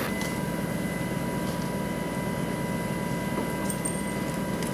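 Steady hum of engine-driven machinery with a constant high-pitched whine over it, running unchanged.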